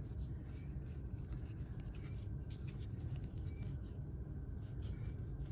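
Faint rustling and light ticks of trading cards sliding against each other as a stack is fanned and shuffled by hand, over a low steady hum.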